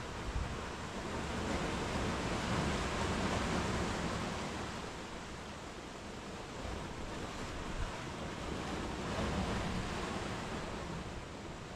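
Sea waves breaking and washing up a sandy beach against rocks, a steady surf hiss that swells and eases twice.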